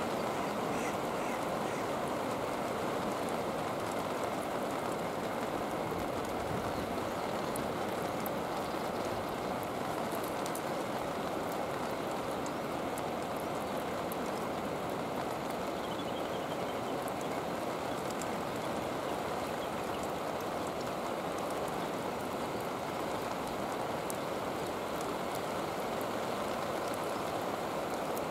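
Steady rainfall: a dense, even hiss of falling rain with fine ticks of single drops, unchanging throughout.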